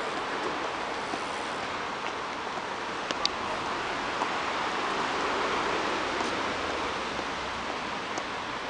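Steady city street noise, mostly traffic on the road, swelling a little around the middle, with a few short sharp clicks.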